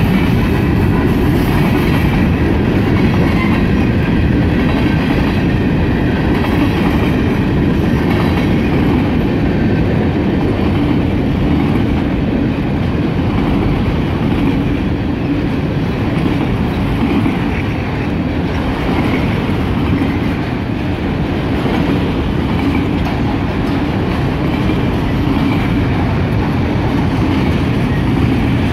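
Freight train cars, covered hoppers then autoracks, rolling past close by: a steady loud noise of steel wheels running on the rails.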